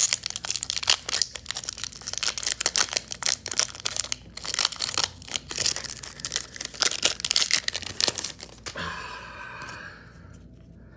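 Foil booster-pack wrapper crinkling and tearing as it is ripped open by hand: a dense run of sharp crackles that dies down about nine seconds in.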